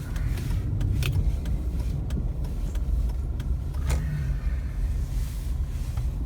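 Car moving slowly, heard from inside the cabin: a low, steady engine and road rumble with a few scattered clicks and knocks.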